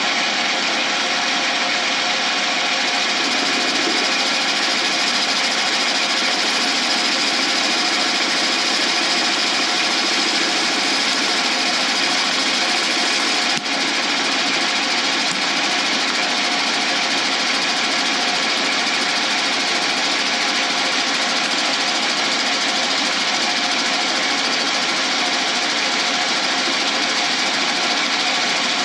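Metal lathe running steadily while its cutting tool turns away the PVC pipe mould around a cast resin blank, with one brief dip about halfway through.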